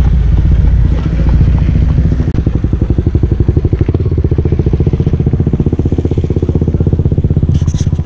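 Engine running close by with a loud, steady low hum. From about two seconds in it turns into a fast, even pulsing, and it cuts off suddenly at the end.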